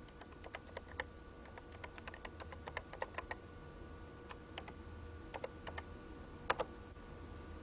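Computer keyboard keystrokes: a quick, uneven run of clicks as a short command is typed, with one louder pair of clicks near the end, over a faint steady tone.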